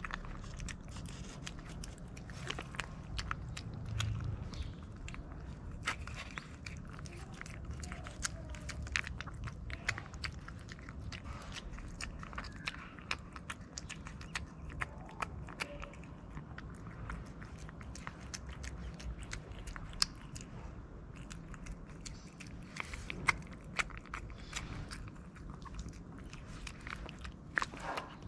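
A cat eating wet pâté from an aluminium foil tray: quick, irregular chewing and lip-smacking clicks over a low steady background rumble.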